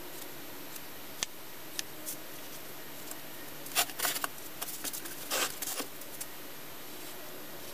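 Wooden molding flask handled: the cope is lifted off the drag and set down on its side, giving a few knocks and scrapes of wood on wood with a little loose sand, a cluster about four seconds in and another about a second and a half later. A few faint ticks come before it.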